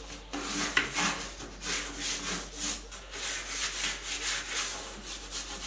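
Fine sandpaper rubbed by hand over the sealed wooden side of a cabinet in quick back-and-forth strokes, about two or three a second. It is smoothing the dried finish coat before another coat goes on.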